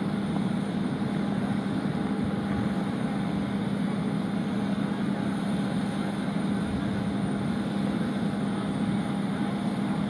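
Steady machinery drone of a parked airliner and its apron equipment running, a constant low hum under an even roar with a fainter steady higher tone.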